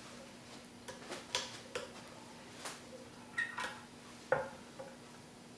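Light, scattered clicks and rustles of badminton string being woven through the main strings and drawn through the racket, with a faint steady hum underneath.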